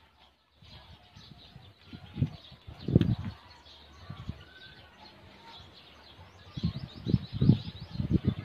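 Birds chirping, with several low thumps and rumbles on the microphone, the loudest about three seconds in and a cluster of them near the end.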